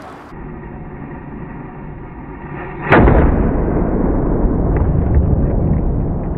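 A bird-scaring banger exploding inside a carved pumpkin, heard slowed down in a replay. A low muffled rumble gives way about three seconds in to a sudden deep boom with a long low rumbling tail.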